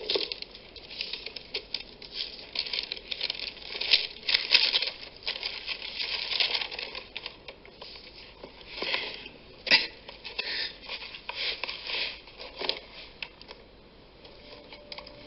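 Paper and a cardboard gift box rustling and crinkling in irregular bursts as a present is unwrapped and handled, with one sharp click about ten seconds in.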